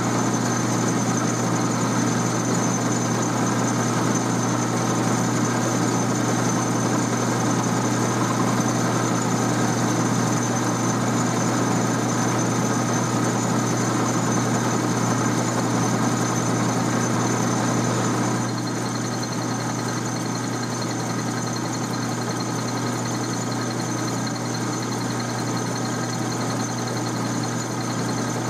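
12-inch Atlas lathe running with a carbide-insert tool taking a turning cut along a steel pipe, steady motor and gear hum with a whine over it. About two-thirds of the way through the sound drops slightly and a higher whine joins in.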